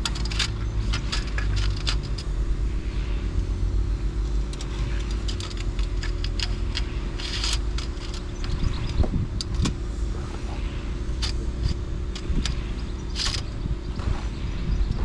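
A vehicle engine running with a steady low rumble, with frequent light rattles and clicks over it.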